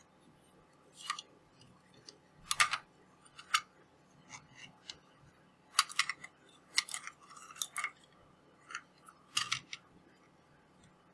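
Irregular sharp clicks and short scrapes of the plastic case of a carbon monoxide alarm being handled and worked open, about a dozen separate sounds with gaps between them.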